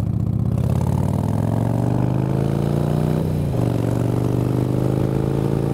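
Harley-Davidson Fatboy's Evolution V-twin accelerating under load, its pitch climbing for about three seconds, then dropping sharply at an upshift and pulling again in the next gear.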